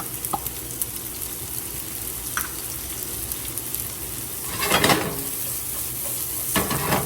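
Chopped onions sizzling in smoking-hot sesame oil in a pan, a steady frying hiss with two louder swells about five seconds in and near the end.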